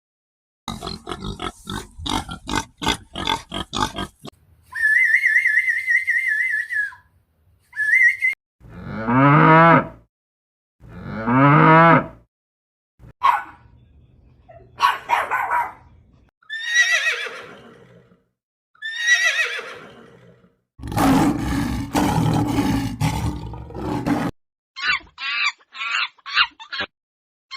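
A run of different animal calls edited one after another with short silent gaps: a rapid series of grunts or clicks, a steady high call, several falling calls, a noisier stretch, and a quick series of short calls near the end.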